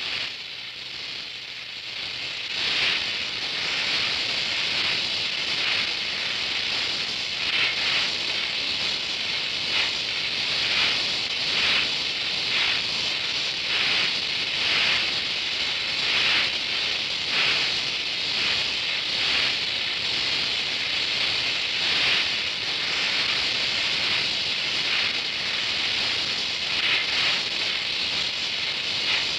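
Oxy-acetylene welding torch flame hissing steadily with a crackle from the weld puddle, swelling and easing about once a second as the bead is run.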